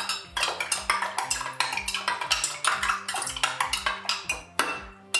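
A metal spoon stirring water in a glass jar, clinking quickly and repeatedly against the glass; the clinking stops near the end. Background music with a steady beat runs underneath.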